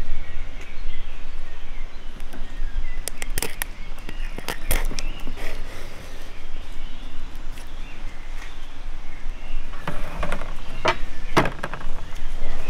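Outdoor background with a steady low rumble and faint bird chirps, broken by a few sharp clicks and knocks as raw quail are handled and pushed onto metal skewers: a cluster about three to five seconds in, and two more near the end.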